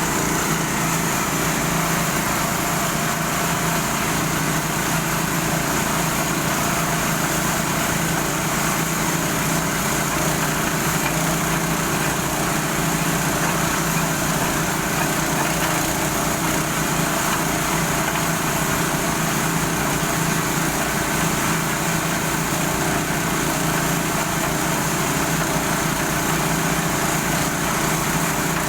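Small 0.5 hp satelit pump motor running steadily, with an unchanging low hum over a wash of mechanical noise.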